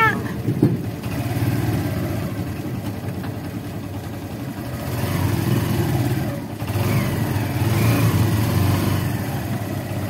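Steady low rumble of a running vehicle engine, growing a little louder about halfway through.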